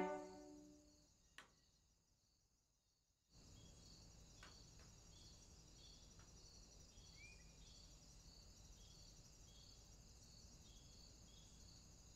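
The last violin note fades out and a single click follows; after a short silence a quiet cricket ambience comes in, with evenly repeating high chirps over a low hiss and one short bird-like chirp partway through.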